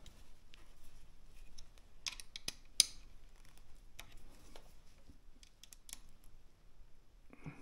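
Scattered small clicks and taps of hands working plastic and metal parts, with a quick cluster and one sharp click about three seconds in.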